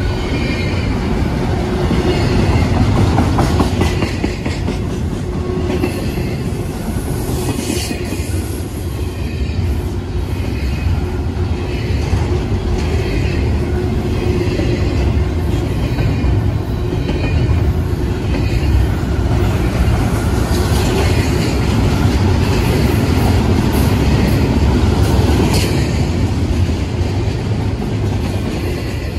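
CSX double-stack intermodal freight train's well cars rolling past: a steady heavy rumble with a rhythmic clickety-clack of wheels over rail joints.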